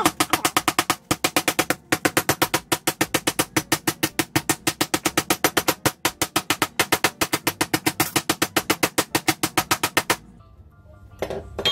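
Metal meat mallet pounding a pork loin slice through cling film on a plastic cutting board: a rapid, steady run of blows, about six a second, with two short breaks near the start, stopping about ten seconds in.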